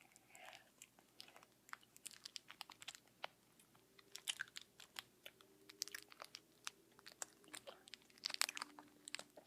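Faint, irregular crackles and clicks of a sour-candy pouch being opened and the candy being chewed.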